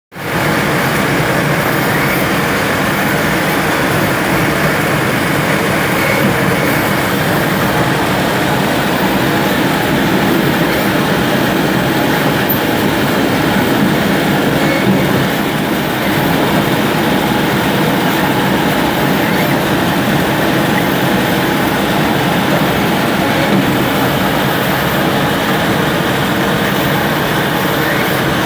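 Autor AGM 635 CNC multi-spindle lathe running, a steady, even machine noise that holds without a break.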